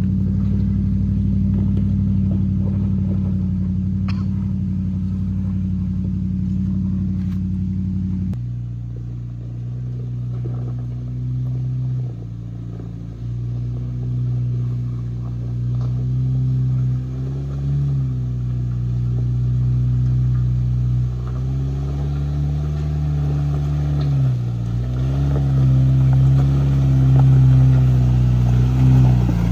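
4x4's engine running under load while crawling a steep off-road trail. Its steady note drops to a lower pitch about eight seconds in, then rises and falls gently several times as the throttle is worked.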